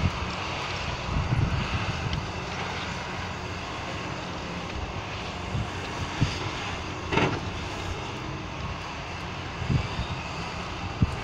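Cat 320E hydraulic excavator working, its diesel engine running steadily under load as it swings and digs sand. A few dull knocks, the loudest with a brief rush about seven seconds in as the bucket swings over and unloads into the tipper truck's steel body.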